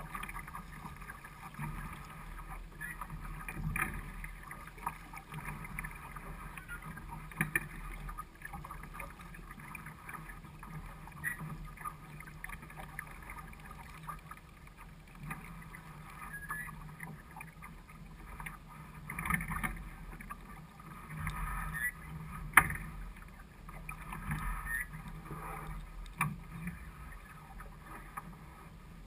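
Water rushing and lapping along a small sailboat's hull as it sails, with frequent small knocks and clicks and one sharper knock about two-thirds of the way through.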